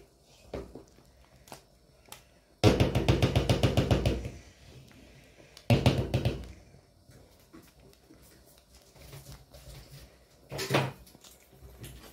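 Wooden spoon stirring thick ogbono soup in a stainless steel pot. It knocks rapidly against the pot in a loud run of about eight strokes a second, lasting over a second, about two and a half seconds in, then again briefly around six seconds and once near the end.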